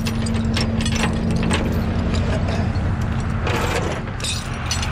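Steel tow chain clinking and rattling against a snatch block and a steel truck deck as it is handled, in many short irregular clicks, over a steady hum from the tow truck's running engine.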